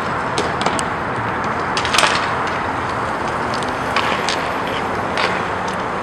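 Inline roller hockey play: a steady rolling rink noise with several sharp clacks of sticks and puck, the loudest about two seconds in.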